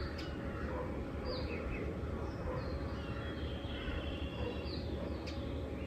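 Outdoor ambience: a steady low background rumble with scattered faint bird chirps, including a short trill about three and a half seconds in.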